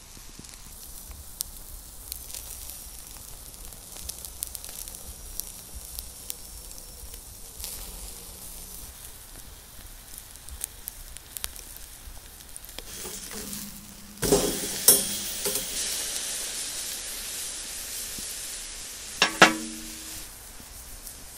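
Ribeye steak sizzling on a wire grill grate over oak wood coals, with scattered crackles from the fire. About two-thirds of the way through, a sudden metallic clank comes with a louder burst of sizzling as the steak is turned onto its raw side. A second sharp metallic clink follows near the end.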